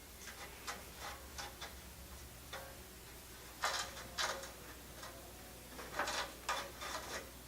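Light, irregular clicks and taps of aluminum door-frame pieces being handled and fitted together, with a few louder knocks about halfway through and again near the end.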